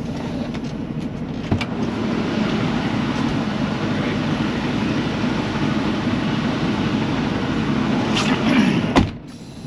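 Semi truck's diesel engine running steadily, getting a little louder about two seconds in. A sharp knock near the end, after which it is quieter.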